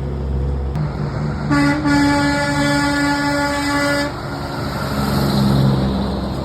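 Semi-truck air horn sounding one long, loud blast of about two and a half seconds, over the steady low rumble of road traffic.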